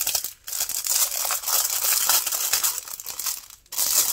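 Thin clear plastic bag crinkling as it is handled and opened to get at a strip of packaged diamond-painting drills. The crinkling breaks off briefly about half a second in and again just before the end.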